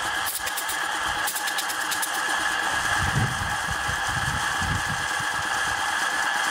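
Small belt-driven piston air compressor running, powered by an old three-phase electric motor on a single-phase capacitor hookup: a steady electric whine and hum over the fast, even pulsing of the compressor strokes.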